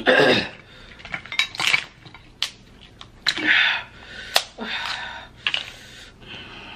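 Snow crab leg shells being cracked and snapped apart by hand: a series of sharp cracks and clicks, the loudest about four seconds in, with short rustling handling of the shell pieces in between.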